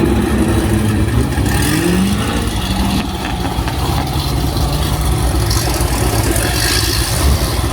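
Car engine running with a steady low rumble, its pitch briefly rising about two seconds in as it is revved.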